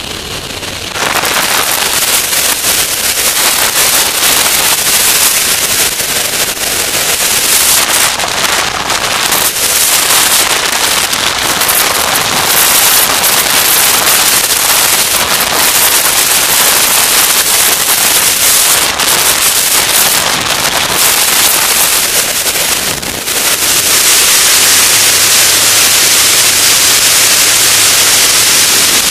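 Loud, ragged rush of airflow buffeting a camera mounted under the wing of an Avid light aircraft in flight, mixed with the drone of its engine and propeller. It jumps louder about a second in, and a faint steady low hum joins near the end.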